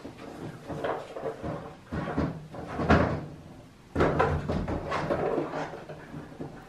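Husky puppy chewing and worrying a cardboard treat box, with irregular cardboard rustling, crunching and knocks in bursts; the loudest comes about three seconds in.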